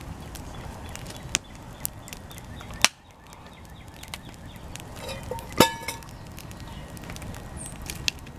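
Wood campfire crackling, with irregular sharp pops over a steady low rush of burning. Loud pops come about a second and a half in, near three seconds, and, loudest of all, a little past halfway.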